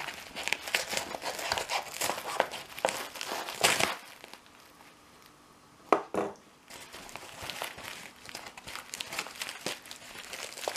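A posted parcel being opened by hand: its packaging crinkling, rustling and tearing. The crinkling stops about four seconds in, two sharp knocks come around six seconds, then the crinkling starts again.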